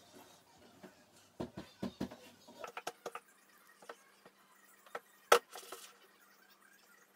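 Scattered light clicks and taps of small objects being handled, with one sharper click followed by a brief hiss about five seconds in.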